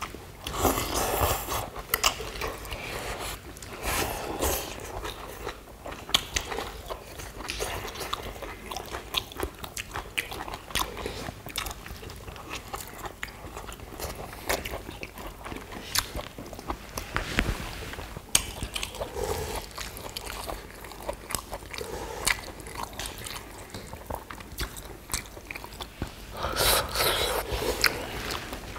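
Close-miked eating of noodles and pollack stew: chewing and slurping, with frequent sharp clicks of chopsticks and spoons on bowls. Longer slurps come about a second in and again near the end.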